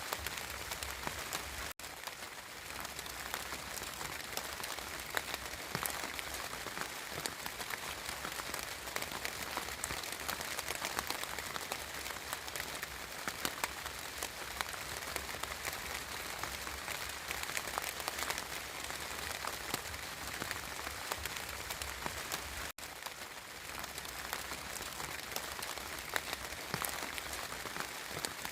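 Steady spring rain falling, a dense even patter with countless individual drops ticking; the sound cuts out for an instant twice.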